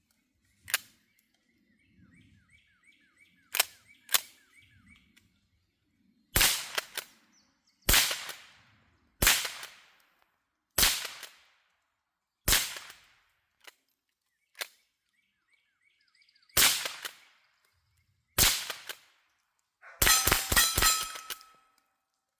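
A few sharp clicks, then .22 Long Rifle rifle shots: seven single shots a second or two apart, each with a short echo, then a fast string of about six shots that empties the magazine. Faint bird chirps sound between shots.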